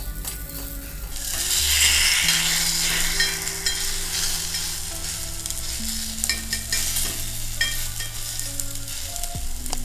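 Egg paniyaram batter sizzling and frying in oil in the cavities of a metal paniyaram pan, getting louder about a second in, with a spoon and fork scraping and clicking against the pan as the balls are turned over.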